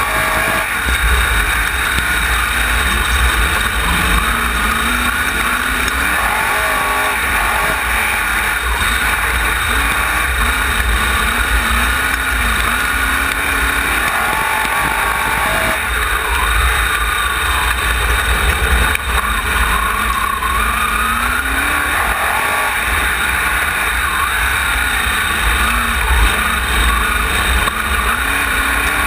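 Wingless sprint car engine heard from onboard while racing on a dirt oval, its pitch rising and falling over and over as the throttle goes on and off through the turns, over a steady low rumble.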